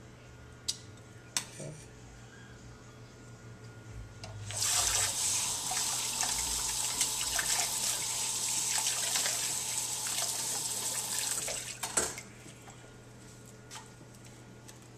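Water running from a kitchen tap as hands are rinsed under it. It comes on suddenly about four and a half seconds in, runs for about seven seconds and is shut off with a knock. A couple of light clicks come before it.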